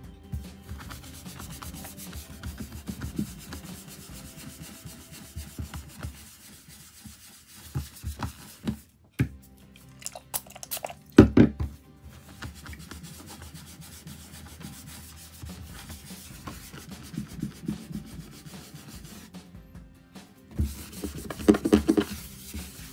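A cloth wipe rubbing over a wooden tabletop, a steady scratchy swishing with louder bursts of scrubbing and a few handling knocks, the loudest about eleven seconds in.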